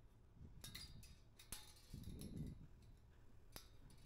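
Faint metallic clicks and scrapes of tie wire being twisted loose from the steel-pipe joint of a stock-yard panel: a few sharp ticks, bunched in the first second and a half and one more near the end, with a low rumble about two seconds in.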